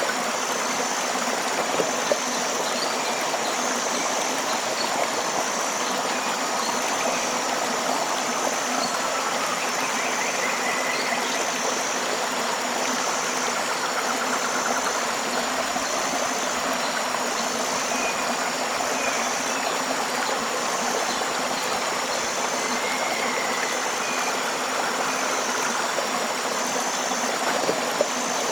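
Tropical river water flowing steadily, with a high chirp repeating evenly about every second and a half and a few faint bird calls over it.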